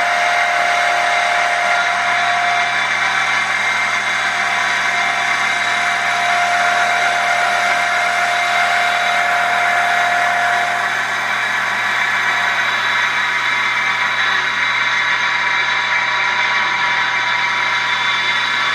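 CNC wood lathe running: a steady loud machine noise, with a thin motor whine that drops out and comes back at a slightly different pitch several times.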